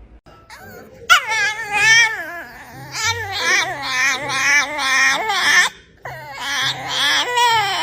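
A dog whining and yowling in long, high cries whose pitch wavers rapidly. The cries begin about a second in and break off briefly near the end before starting again.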